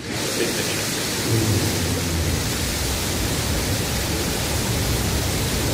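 Blue Origin New Shepard's BE-3 hydrogen-oxygen rocket engine firing at ignition and liftoff: a steady, dense rush of rocket exhaust noise, with a deep rumble that grows stronger about a second in.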